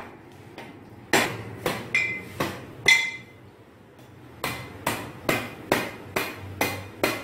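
Large knife hacking at a singed beef trotter on a stone floor to knock the hard hoof off: about a dozen sharp blows, roughly two a second, with a pause after the first five, some leaving a brief metallic ring.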